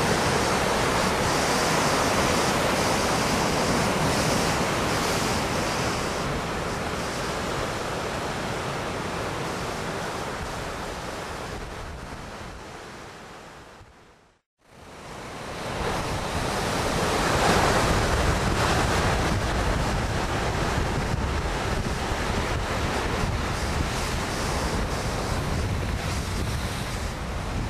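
Ocean surf breaking, with wind buffeting the microphone: a steady rush of noise. It fades out to silence about fourteen seconds in, then fades back up.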